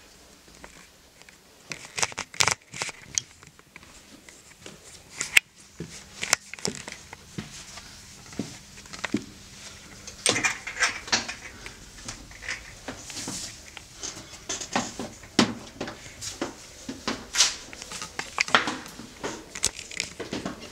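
Footsteps on a narrow wooden spiral staircase: irregular knocks and scuffs of shoes on the wooden treads, starting about two seconds in.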